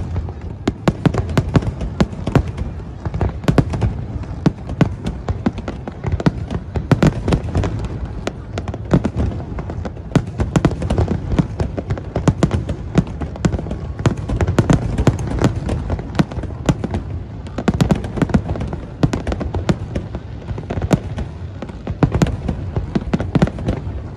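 Aerial fireworks display: shells bursting in a dense, unbroken run of bangs and crackles.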